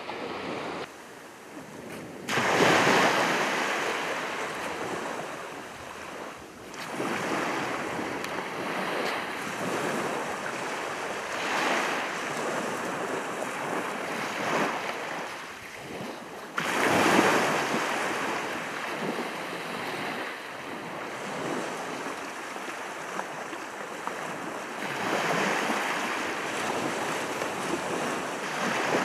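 Small waves breaking and washing up a shingle beach, the surf rising and falling every few seconds.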